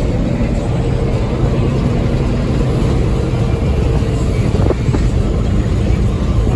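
Tandem grain truck on the move: a steady engine and road rumble heard from inside the cab.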